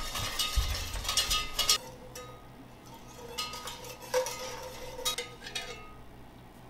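Wire whisk scraping and tapping against the inside of a stainless steel pot as butter is whisked into a sauce to emulsify it. The whisking is fast and dense for the first couple of seconds, then slows to scattered strokes with the pot ringing faintly.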